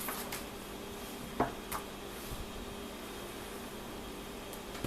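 Quiet room tone with a steady low hum and two faint clicks about a second and a half in.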